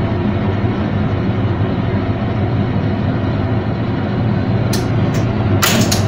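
Washing machine running with a steady low mechanical hum while pressurized water from its 3-way solenoid valve closes the rubber bellows drain valve. A few sharp clicks come near the end.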